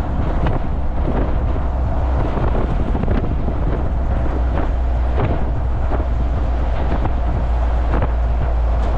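Steady low rumble of a moving road vehicle, with wind buffeting the microphone and scattered short clicks and knocks.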